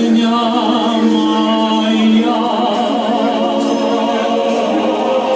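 A choir singing a song in long held notes.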